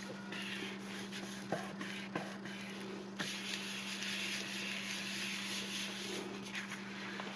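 Paper rustling and rubbing as envelope pages are handled and pressed down, with a few light taps, over a steady low hum. The rubbing grows denser about three seconds in.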